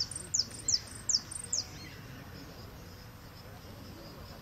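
A jilguero (saffron finch) singing: a quick run of about five high, downward-slurred notes in the first second and a half, then it stops.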